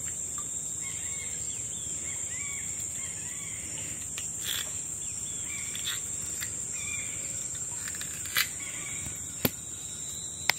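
Steady high-pitched drone of insects in the forest, with scattered short bird chirps and a few sharp knocks in the last couple of seconds.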